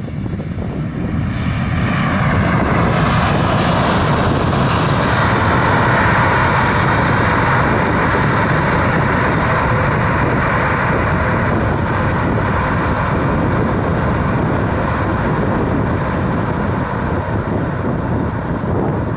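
Boeing 787-9's twin turbofan engines swelling to a loud, steady rush about two seconds in as the airliner rolls out on the runway just after landing, typical of reverse thrust slowing it down.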